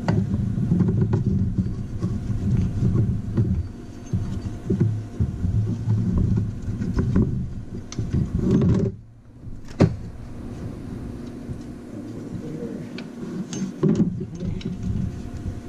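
Hands working a ribbed engine drive belt onto its pulleys: rubbing, scraping and handling noise, with a sharp click just after a brief lull about ten seconds in.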